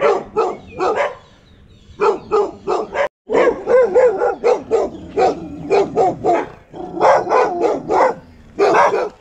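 Dog barking repeatedly in runs of quick barks, a few a second, with short breaks between runs.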